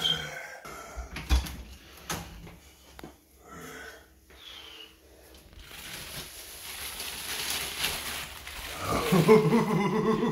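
Rummaging in a cupboard: a few knocks, then a rising crinkle of the plastic wrap on a toilet paper multipack being pulled out and hugged. A man makes wordless, animal-like vocal noises throughout, loudest near the end.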